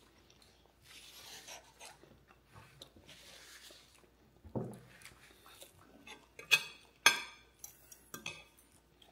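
Quiet breakfast-table sounds: faint rustling, then two sharp clinks of cutlery against a plate about half a second apart, a little past the middle.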